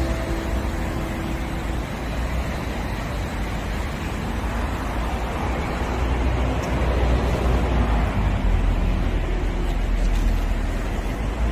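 Steady road traffic noise with a deep rumble, growing a little louder in the second half. Faint background music fades out about two seconds in.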